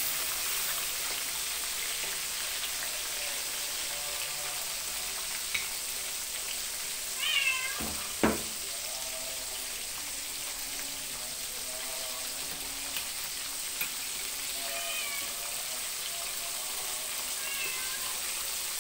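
Small whole fish deep-frying in a wok of hot oil, a steady sizzling hiss, while a cat meows: once about seven seconds in and twice more, more faintly, near the end. A single sharp knock comes just after the first meow.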